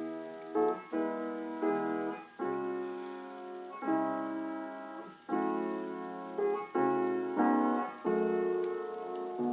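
Background piano music: slow, sustained chords that change roughly once a second.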